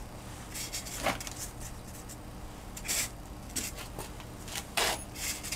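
Foam blocks and a Sharpie held in a scrap-foam jig being handled on a workbench: a handful of short scrapes and rubs, about a second apart at most, over a faint steady hum.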